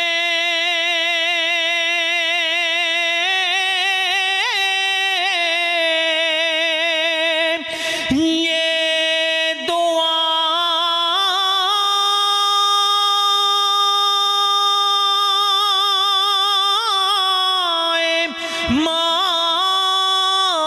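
A man singing an Urdu naat unaccompanied into a microphone, drawing out long held notes with a wavering vibrato and ornamented turns, broken by a few short breaths.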